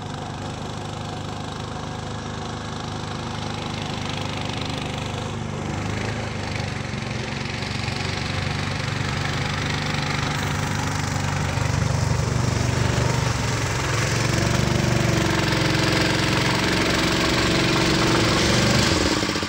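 Small engine of a tracked swamp vehicle running steadily under load, growing louder as it crosses the water toward the listener and climbs onto the bank. A stronger steady engine note comes in about three-quarters of the way through.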